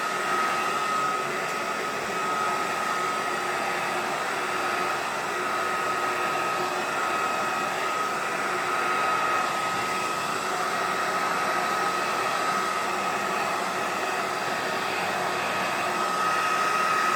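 Hairdryer running steadily, blowing air with a continuous hiss and a constant whine.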